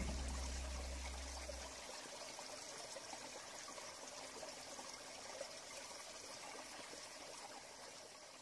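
Steady trickling, running-water sound like a small stream, slowly fading away near the end; a last low note of music dies out in the first two seconds.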